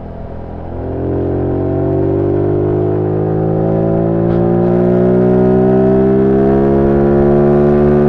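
Zontes U1 125's single-cylinder engine with its stock exhaust, heard from on board while riding. The throttle opens about a second in, and the revs then climb slowly and steadily as the bike pulls in one gear.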